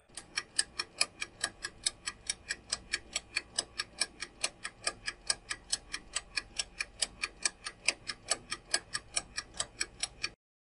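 Ticking-clock countdown sound effect timing a quiz answer: even, rapid ticks, about five a second, that stop abruptly near the end.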